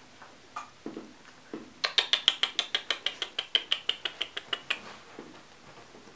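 A rapid, even run of sharp ratchet-like clicks, about eight a second, starting near two seconds in and lasting about three seconds, preceded by a few soft low knocks.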